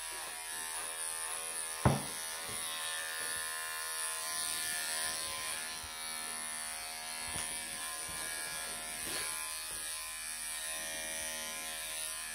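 Wahl professional electric pet clippers running with a steady buzz as they shave a Persian cat's tail and body fur. A single sharp knock comes about two seconds in.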